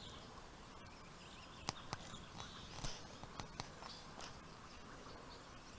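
Quiet outdoor background with a handful of brief soft clicks and taps scattered through it, and a few faint high chirps.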